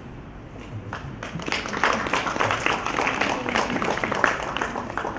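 An audience applauding, starting about a second in and tailing off near the end.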